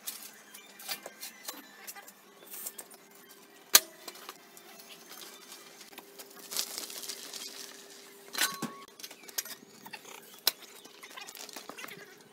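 Scattered metallic clinks and knocks as a swage block is handled on a steel hand truck, with one sharp clank about four seconds in. Later comes a short, rough rolling noise as the loaded hand truck is wheeled out.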